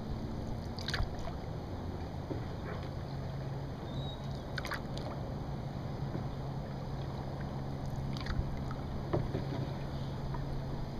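Canoe being paddled on a lake: three short paddle splashes, a few seconds apart, over a steady low rush of water and wind.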